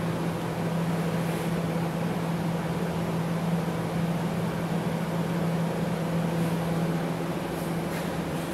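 Steady mechanical hum of running plant equipment, with a constant low drone under an even wash of noise.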